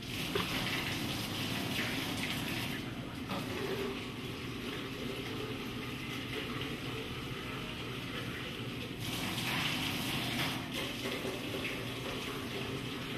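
Tap water running into a stainless-steel sink: a steady rush, louder for the first few seconds and again about two-thirds of the way through.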